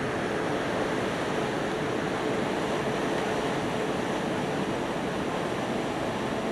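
Steady rushing noise of wind and ship machinery on a cruise ship's upper deck as it docks, with a faint steady hum that fades out about two-thirds of the way through.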